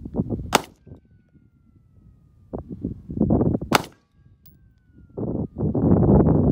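Semi-automatic pistol fired twice, two sharp cracks about three seconds apart. Between and after the shots come stretches of low rumbling noise.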